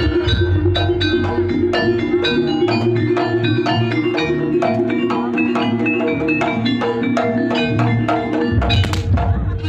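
Javanese gamelan accompaniment for jaranan: bronze metallophones struck in a quick, steady pattern over sustained ringing gong tones, with drums.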